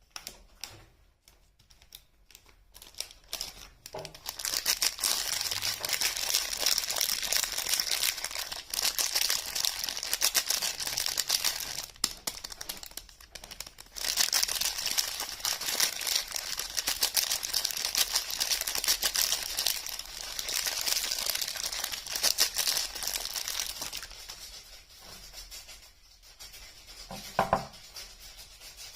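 Soap wrapper crinkling and tearing as bars of soap are unwrapped, in two long stretches of dense crackling with a short pause between them, dying down near the end.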